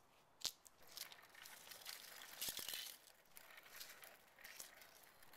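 Stroller being pushed along a concrete sidewalk: faint, irregular scraping and rattling of its wheels, with a sharp click about half a second in.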